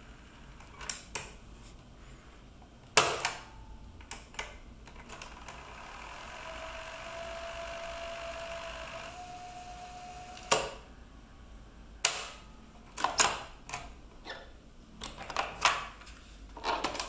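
Mechanical clicks of a Marantz CP430 portable cassette deck being operated: transport keys pressed and the cassette door and cassette handled, in small groups of sharp clicks. In the middle the transport motor whirs with a thin whine for about four seconds, stepping up slightly in pitch before it stops with a click.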